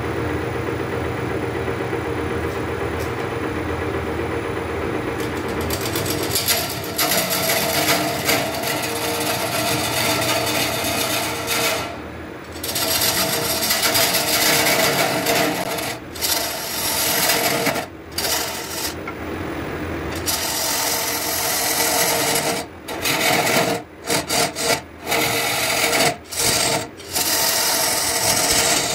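Wood lathe running with a steady hum. From about six seconds in, a loud abrasive rasping as sandpaper is pressed against the spinning Albizia lebbeck workpiece, broken by several short pauses where it is lifted off.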